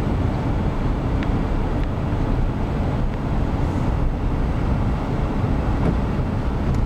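A car driving along, its engine and tyres making a steady low rumble.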